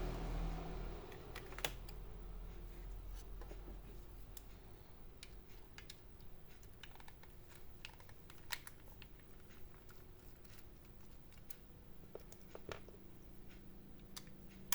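Scattered light clicks and taps from the laptop's hard drive and small plastic and metal parts being handled, a few sharper knocks among them.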